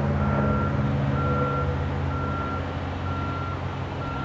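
Cessna 172S Skyhawk SP's four-cylinder Lycoming engine and propeller droning steadily overhead in a climb. Over it, a vehicle's reversing alarm beeps about once a second.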